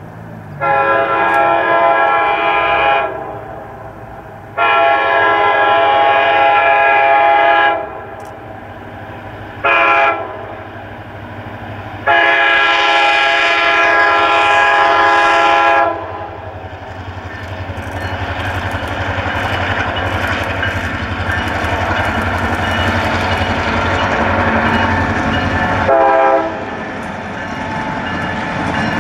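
Reading & Northern F-unit diesel locomotive's air horn sounding the grade-crossing signal: two long blasts, one short, one long. The train's rumble then builds as it passes the crossing, with one more quick horn toot near the end.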